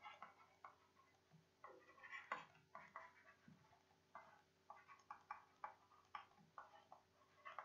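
Faint, irregular scratching and tapping of a stylus on a writing tablet as words are handwritten, a string of short strokes with a louder cluster about two seconds in.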